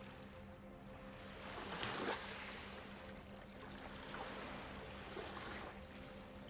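Gentle water lapping, with one louder wash of water about two seconds in, over a soft, steady ambient music drone.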